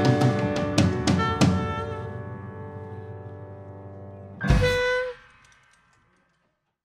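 Live band with drum kit playing the final bars of a song: a few sharp drum hits over a held chord that slowly fades, then one loud closing hit with a short chord about four and a half seconds in, ringing out to silence.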